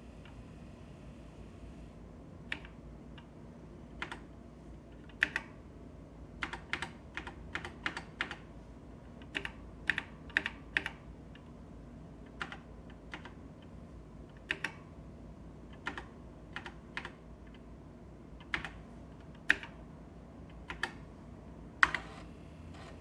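Keys being pressed one at a time on an Apple //e keyboard: separate sharp keystroke clicks, irregularly spaced with short pauses, as menus and settings are stepped through.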